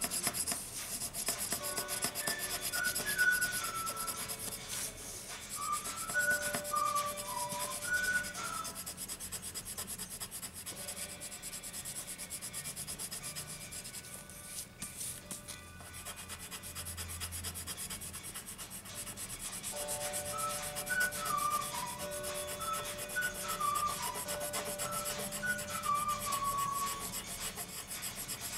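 Coloured pencil scratching rapidly back and forth on paper while shading in an area.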